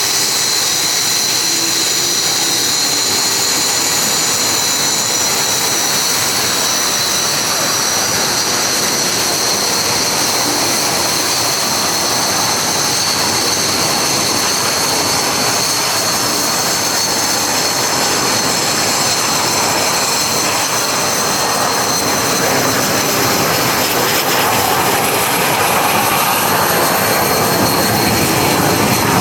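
Jet engines running with a steady high-pitched turbine whine over a constant rush of noise; a still higher whine rises near the end.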